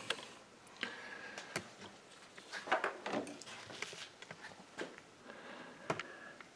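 Scattered light clicks and knocks of hand tools being handled.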